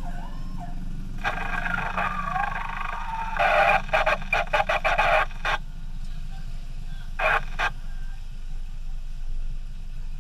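Two-way radio transmissions crackling through a handheld transceiver in bursts, the longest and loudest a few seconds in and a short one near the end, over the steady hum of the idling vehicle engine.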